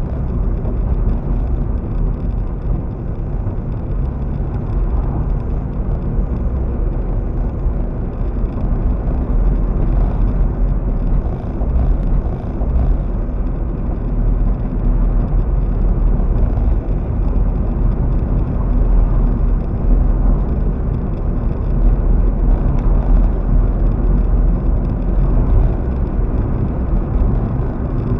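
Car driving along a paved road: a steady low rumble of engine and tyre noise heard inside the cabin.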